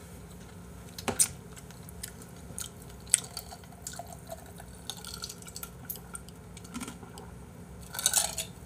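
A man drinking from a glass, with small wet mouth and swallowing sounds and a few light clicks and knocks, the sharpest about a second in.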